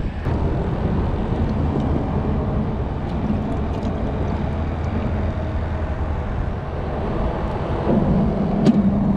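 A steady low engine drone runs throughout, swelling slightly near the end, with a few faint clicks over it.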